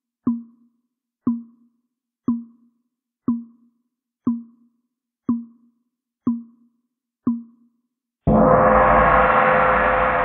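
Countdown timer's tick sound, one short tick each second, eight ticks in all. Then, as the timer reaches zero, a loud end-of-countdown sound starts suddenly and rings on, slowly fading.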